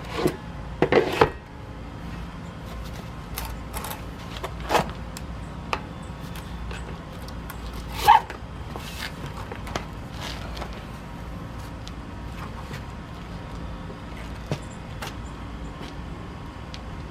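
Scattered clicks and knocks of hands working a cam band strap around a scuba tank's boot. There is a cluster of knocks in the first second and single sharper knocks at about five and eight seconds, over a steady low hum.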